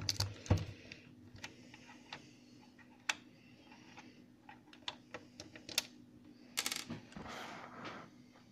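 Screwdriver backing a screw out of an LCD monitor's plastic rear casing, and the loosened screw being picked out by hand: scattered small clicks and taps about a second apart, with a short burst of louder clicks about six and a half seconds in.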